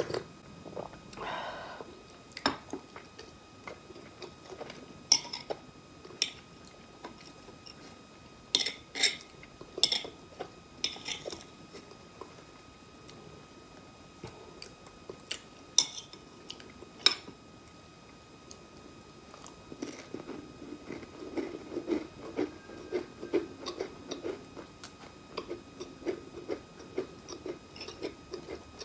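Close-miked eating sounds. A sip from a cup comes about a second in, then sharp clicks and scrapes from a butter knife spreading guava jam on a cracker and tapping the plate, then steady rhythmic chewing through the last third.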